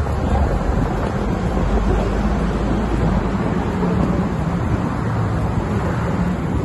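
Steady city road traffic, cars passing on the road, with a low wind rumble on the microphone.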